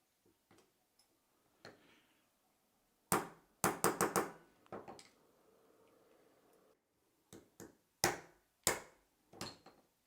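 Sharp clicks and taps of small tools and parts against a SRAM Red shifter being taken apart: one near three seconds in, a quick run of four just after, then three more near the end.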